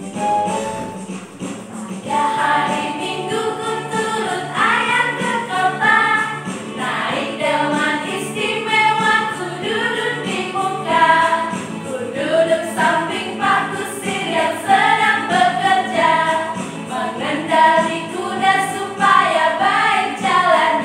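Group of women singing a children's action song together over electronic keyboard accompaniment with a steady beat. The voices come in about two seconds in.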